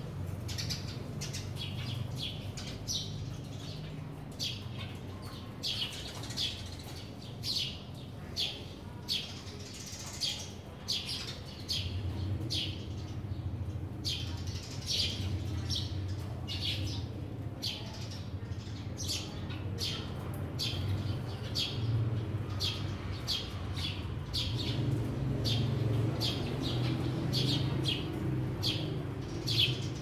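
Sparrows chirping over and over, a steady run of short, sharp chirps with occasional wing flutters as birds fly in. A low, steady rumble runs underneath.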